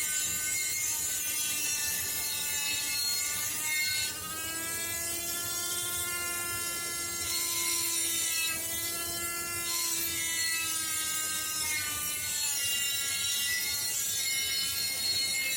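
Electric rotary tool engraving the steel axe head: a high, steady motor whine whose pitch wanders up and down several times.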